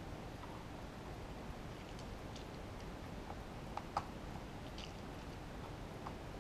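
Faint scattered clicks and taps of small plastic knobs being handled at an audio rack unit's metal front panel, with one sharper click a little before four seconds in, over a steady low background hiss.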